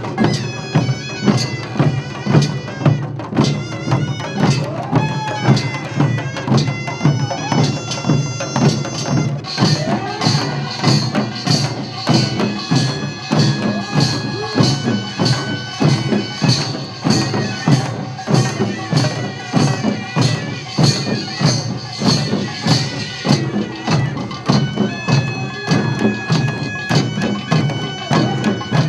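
Korean farmers' band music (pungmul): a shrill reed melody, typical of the taepyeongso shawm, played over a steady beat of drums and gongs.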